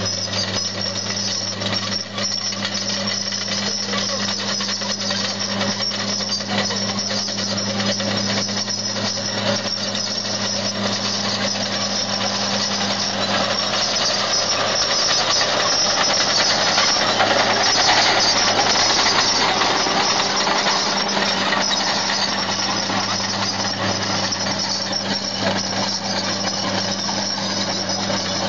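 Caterpillar D5 crawler tractor's diesel engine running steadily under load while pulling a plough, growing louder as it comes close and passes a little past the middle, then easing off.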